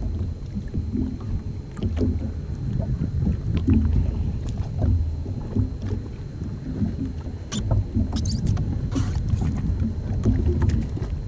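Uneven low rumble of wind and water against a jet ski on open sea, swelling and fading, with a few light knocks and clicks about eight and nine seconds in.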